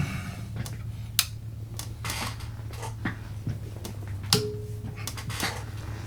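Scattered clicks and light knocks of small tools and parts being handled on a workbench, the sharpest about a second in and twice more near the end, over a steady low hum.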